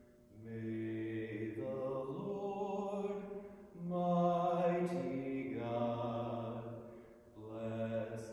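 A man singing a vocal solo in slow phrases of long held notes, with short breaks about three and a half and seven seconds in.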